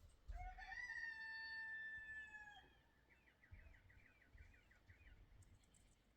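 A faint animal call: one long held note of about two seconds, followed by a short, quick warbling trill.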